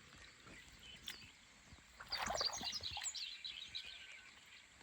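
Small birds chirping in quick, high twitters, with a brief noisy rush about two seconds in.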